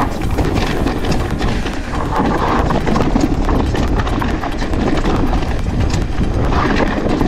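Mountain bike riding fast over a rough dirt trail: tyres on dirt and gravel, with the bike knocking and rattling over bumps and a low rumble of wind on the microphone.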